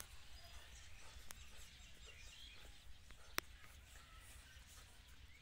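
Near silence: faint outdoor ambience with a few faint bird chirps and a single sharp click a little over three seconds in.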